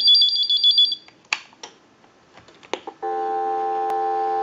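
Harris TS22 butt set's piezo ringer warbling in a fast high two-tone trill, stopping about a second in. A few clicks as the handset is handled and set down, then about three seconds in a steady telephone dial tone comes on.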